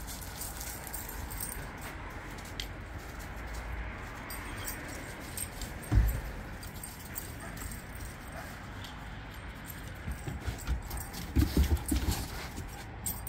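Two dogs play-wrestling in snow: scuffling with faint jingles of collar tags, a single low thump about six seconds in and a run of low thumps near the end.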